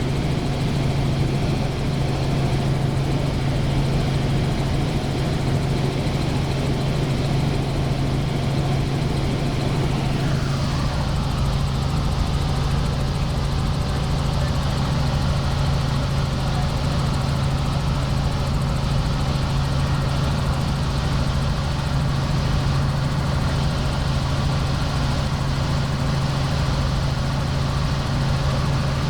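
Helicopter noise heard in flight: a steady, loud low drone from the rotor and engine, with a fainter whine that slides down in pitch about ten seconds in.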